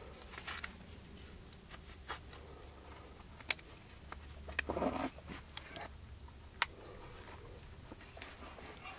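Plastic buckles on a hiking backpack's straps snapping shut: two sharp clicks about three seconds apart, with a short rustle of straps and fabric between them.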